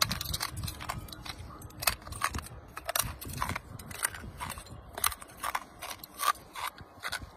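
A man biting and chewing the glass of a fluorescent tube light: a run of irregular sharp crunches and cracks.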